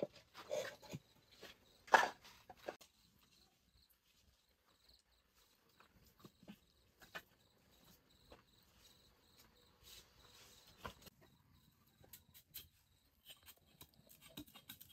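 Knocks and clatter of firewood and cookware at an open wood fire, the loudest about two seconds in, then only faint scattered clicks and taps.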